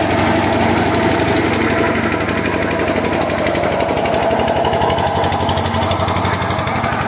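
An engine running steadily with a rapid, even knocking beat.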